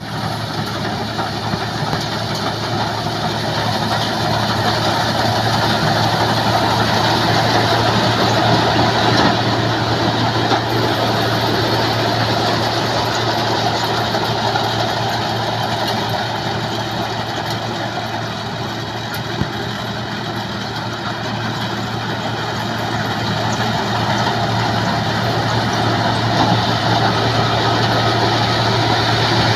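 MCH 2000 PJ Star combine harvester running steadily: a constant low engine hum under a broad mechanical noise, easing slightly about two-thirds of the way through and building again, with one short click near the middle.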